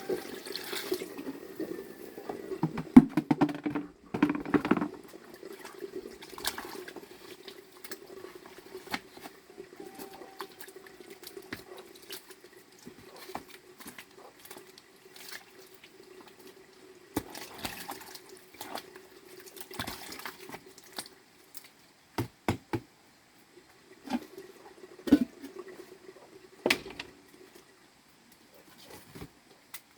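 Water running steadily, with scattered knocks and clatters, the loudest a cluster about three to five seconds in.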